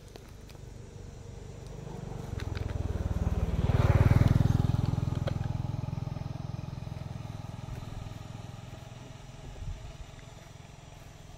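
A motor vehicle's engine passing by, growing louder to a peak about four seconds in and then slowly fading away.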